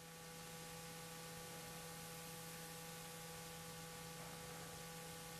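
Faint steady electrical hum with hiss, several steady tones held throughout without change.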